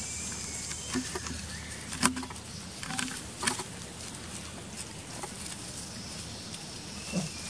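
Dry leaves crackling and rustling under a macaque's feet as it walks: a few short crackles in the first half and one more near the end, over a steady outdoor hiss.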